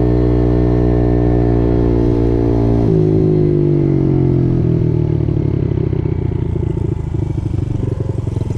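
Dirt bike engine running under way, heard from the bike itself: a steady drone that eases slightly down in pitch, then about three seconds in the note drops abruptly and turns into a lower, uneven putter.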